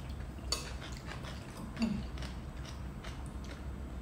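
Eating sounds close to the microphone: chewing and mouth noises, with a few sharp clicks of metal spoons against ceramic soup bowls, over a low steady hum.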